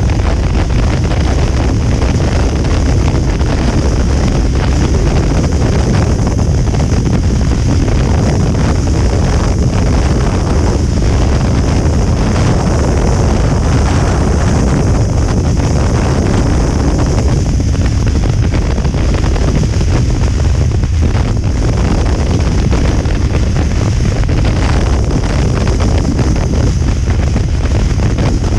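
Continuous heavy wind noise buffeting the microphone while riding a Kawasaki Ninja 300 at highway speed, with the bike's running noise underneath.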